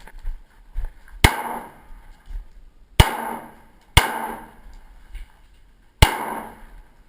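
Four shots from a Beretta 92FS 9mm pistol at uneven intervals, the middle two about a second apart. Each shot is a sharp crack with a ringing tail that dies away over about half a second.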